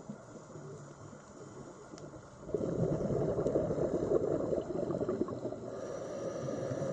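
Underwater bubbles, most likely a scuba diver's exhaled bubbles, gurgling and crackling in a loud burst of about three seconds that starts a little before halfway in, over a quieter underwater hiss.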